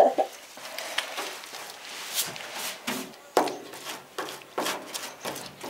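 Irregular scrapes and taps of a hand tool working on the rusty sheet metal of a van body around rust holes, roughly one or two strokes a second.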